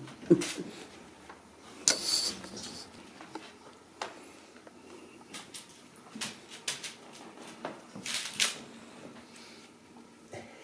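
Kittens at play with a feather wand toy: scattered light scuffles, taps and rustling, with short rustling bursts about two seconds in and again about eight seconds in.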